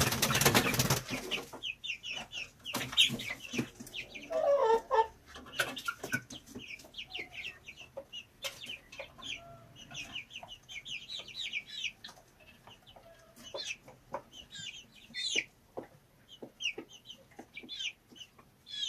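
Chicks peeping in runs of short, high notes, with a hen giving a few low clucks about four to five seconds in. A loud rustling burst opens the first second or so.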